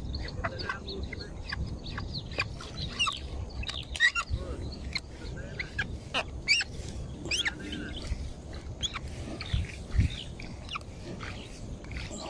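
Birds calling in short, scattered chirps over a steady low rumble, with a few sharp knocks.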